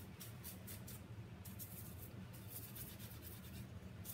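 Stiff natural-bristle brush scrubbing over silver leaf on a wooden board: short, dry, scratchy strokes about three a second, with a brief pause about a second in. The brushing lifts the loose leaf off wherever no gilding size was applied.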